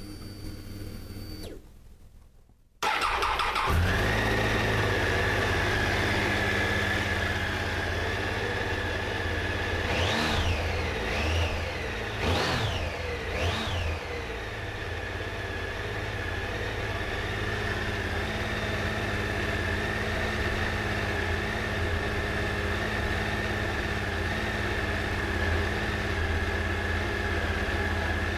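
Triumph Tiger 800's three-cylinder engine starting up about three seconds in and settling to idle, then four quick throttle blips a few seconds later before it idles steadily again. The engine is being run to circulate the coolant flush through the cooling system.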